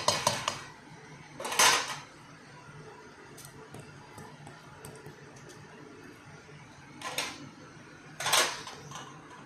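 A spoon scraping and scooping through cooked rice in a pan, four short bursts of scraping with a few light ticks between.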